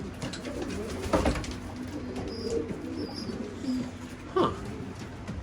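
Racing pigeons cooing, low overlapping coos throughout, with two brief louder sounds about a second in and about four seconds in.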